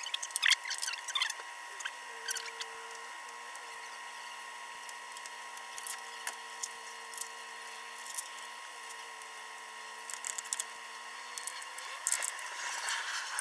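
A power tool whines steadily. A lower steady tone comes in about two seconds in and stops near the end, with scattered sharp clicks and clatter throughout.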